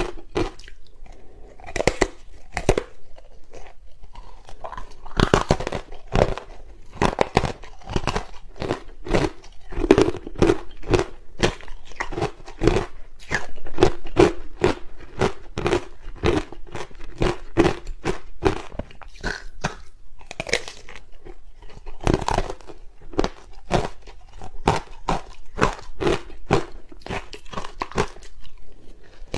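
Ice blocks coated in matcha powder bitten and chewed close to the microphone: a dense, irregular run of sharp, crisp crunches, a few each second.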